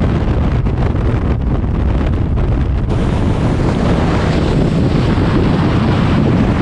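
Heavy wind buffeting the microphone of a camera in the airstream of a moving car: a loud, steady rumble and rush, turning a little brighter about three seconds in.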